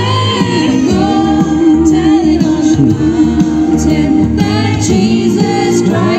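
A group of women singing together into microphones, their voices amplified, with held, wavering notes.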